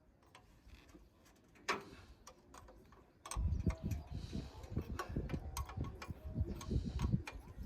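Scattered light clicks and ticks, with a low rumbling noise and frequent small knocks setting in about three seconds in.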